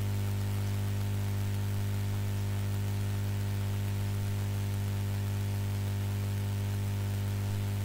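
Steady low electrical hum with a stack of higher overtones and an even background hiss, unchanging throughout.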